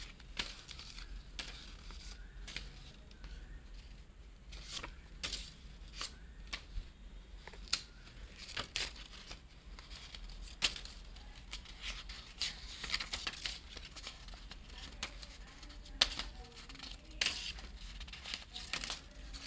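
Paper banknotes (Indian 500-rupee notes) rustling and crinkling as they drop onto a pile of notes, in irregular sharp crackles.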